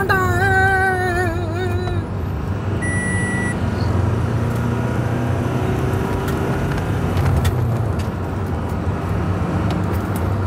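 Toyota Innova Crysta running on the road, its steady engine and road noise heard from inside the cabin. A short high beep sounds about three seconds in, and a wavering pitched tone is heard in the first two seconds.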